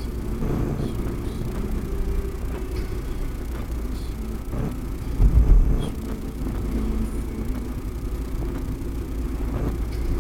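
Steady low rumble of a car on the move, picked up by a WDR dashcam's microphone, with one brief louder low thud about five seconds in.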